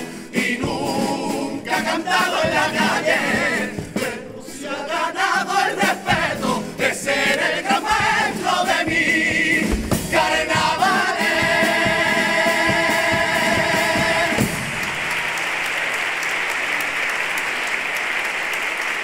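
Cádiz carnival comparsa singing in several-part harmony, closing on a long held chord. About three-quarters of the way through the singing stops and the audience applauds steadily.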